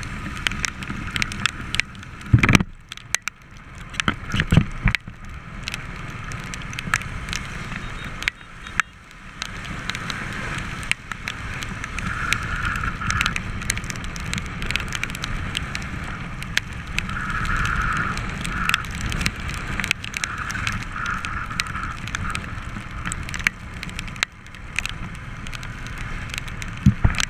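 Royal Enfield Thunderbird 350's single-cylinder engine running at cruising speed, with tyre hiss on a wet road. Raindrops make frequent sharp ticks on the camera, and there are a couple of louder thumps a few seconds in.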